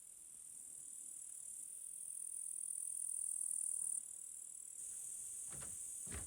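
Steady high-pitched insect chirring that swells over the first few seconds and drops suddenly about four seconds in, with faint music beneath it. A few soft footsteps near the end.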